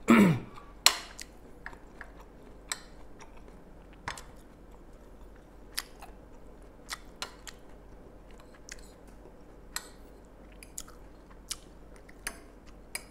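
Close-up chewing of crunchy fried honey bamboo shoots, with short crisp clicks scattered every second or so; the loudest comes about a second in.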